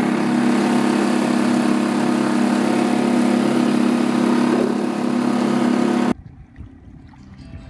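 Small Suzuki outboard motor running steadily at about quarter throttle, with the wash of water past the hull. The sound cuts off abruptly about six seconds in.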